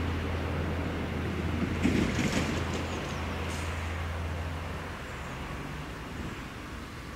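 Stadler GTW diesel multiple unit pulling away, its engine a steady low drone that fades and stops about five seconds in. There is a short louder rush about two seconds in.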